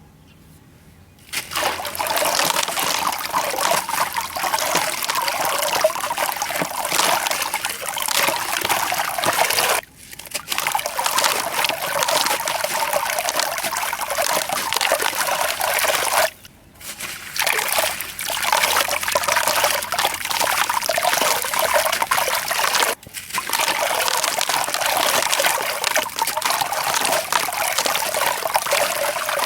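Sand and concrete chunks crumbling, a dense gritty crackle of grains falling. It comes in four long stretches separated by brief pauses.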